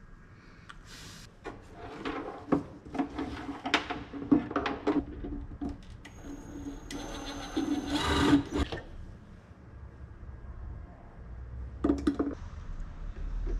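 A small electric motor whirs in several short runs amid irregular clicks and knocks of hands working with parts.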